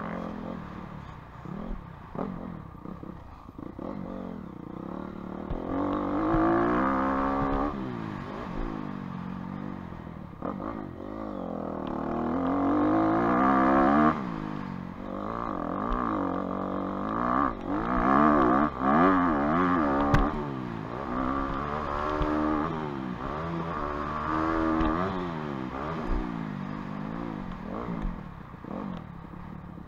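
Honda 250 dirt bike engine being ridden hard around a motocross track, revving up and down over and over with the throttle and gear changes. The pitch climbs and falls repeatedly, with a sharp drop in the engine note about fourteen seconds in.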